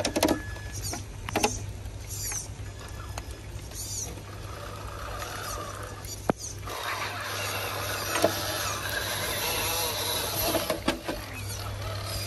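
MST RC rock crawler's electric motor and gear train whirring as it crawls over wet rock, growing steadier and louder from about halfway through, with a sharp click just after the midpoint. Short high bird chirps come and go.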